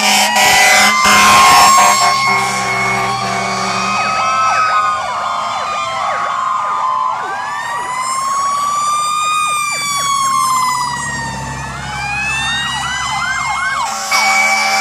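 Sirens of several fire engines and other emergency vehicles sounding together, overlapping slow rising-and-falling wails. A quick yelping pattern comes in a little before the end.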